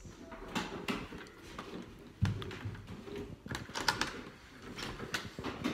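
Scattered light knocks and clicks of people moving about a room, with a heavier thump about two seconds in.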